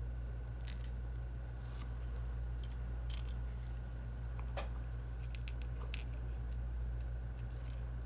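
A steady low electrical hum, with scattered faint, sharp clicks and taps of small tools against the phone's small plastic and metal parts.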